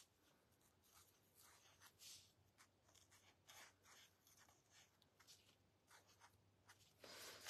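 Faint scratching of a paint marker tip drawing on paper, in a series of short, separate strokes.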